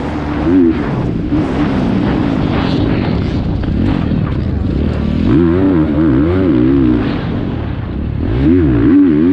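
Dirt bike engine running, its pitch rising and falling repeatedly as the throttle is worked, more sharply in the second half.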